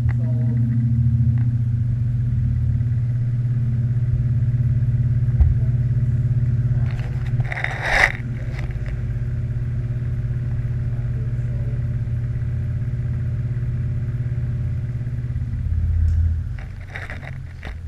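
Hunter FD209S box fan motor running: a steady low electrical hum with the rumble of the blades moving air. Two brief, louder bursts of noise break in, one about halfway through and one near the end.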